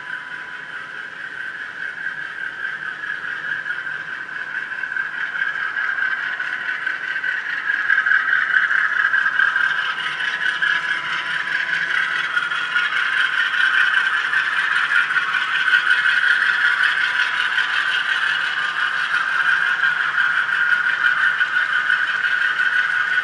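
HO-scale model train running: the TCS WOWsound decoder's GE diesel sound from the U25C locomotive's small speaker, mixed with the metal wheels of a long string of hopper cars rolling and rattling over the rails. It grows louder as the train comes closer, then holds steady as the cars pass.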